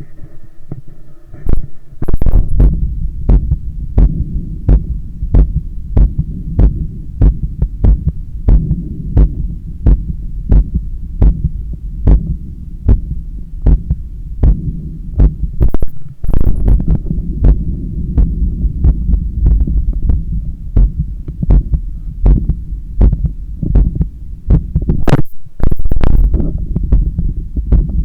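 Heartbeat heard through a stethoscope on the chest: a regular train of low thumps over a steady low rumble, with the heart working under the exertion of bicep curls. Near the middle and again near the end there are brief scraping noises from the chest piece rubbing against the skin.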